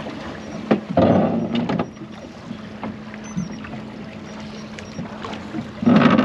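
A steady low hum from the boat, with two brief louder rushes of noise, one about a second in and one near the end.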